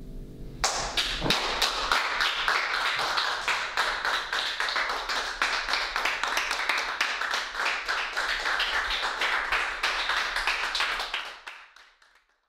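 Applause from a small group of people, starting abruptly just after the start, a dense run of many claps that fades away near the end.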